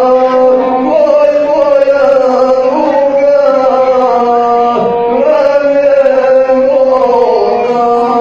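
Gusle, the one-string bowed folk fiddle, played with a man's chanted singing of epic verse over it, the melody holding long tones and bending slowly.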